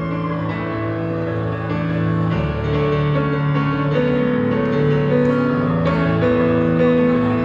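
Live music in an instrumental passage with no vocals: held keyboard chords over a bass line, growing steadily louder.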